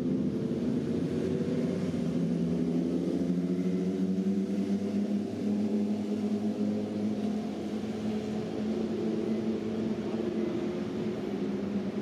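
A steady low hum made of several held tones that slide slowly in pitch, with no breaks.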